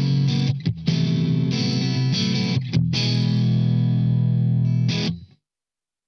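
Tokai AST-104SH Stratocaster-style electric guitar played through an overdriven amp: distorted chords and short riffs, then a last chord left ringing for about two seconds before the sound cuts off suddenly near the end.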